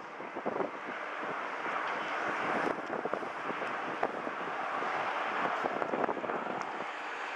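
Boeing 737 jet engines running as the airliner rolls out along the runway after landing: a steady, even rush of jet noise, with wind buffeting the microphone in short crackles.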